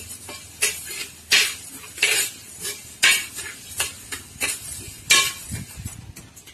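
A metal ladle scraping and knocking against a large pan as split mung dal is stirred while dry-roasting, with the grains rustling. The strokes come at an uneven pace, about one every half second to a second.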